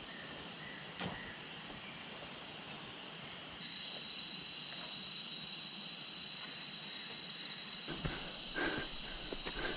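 Jungle insects shrilling steadily, with a high, piercing tone joining in about a third of the way through. There are a few soft knocks.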